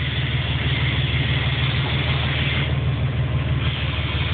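A motor running steadily with a low, fast-pulsing hum and a hiss over it; the hiss drops away for about a second near the middle.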